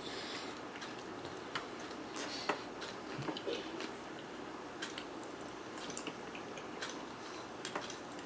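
Quiet eating sounds: a dozen or so scattered small clicks and taps from a spoon and mouth while eating an ice cream sundae, over a low room hiss.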